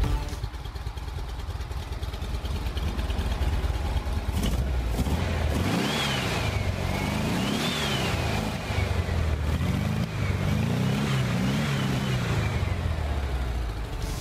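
Air-cooled flat-four engine of a 1969 VW Type 2 bus running on its first start after restoration. It idles steadily, then from about halfway the throttle is blipped several times, the revs rising and falling.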